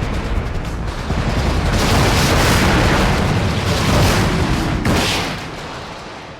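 Battle sound effect of explosions: a dense, heavy rumble that swells twice, then fades out near the end.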